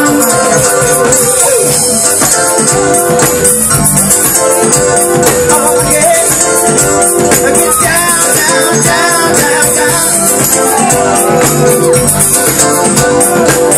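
Loud live band music with a steady beat: keyboard, drums and percussion, with a singing voice at times.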